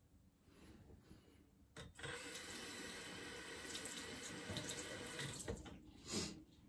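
Water running from a bathroom sink tap for about four seconds, starting about two seconds in, as the straight razor is rinsed mid-shave; a short knock comes just after the water stops.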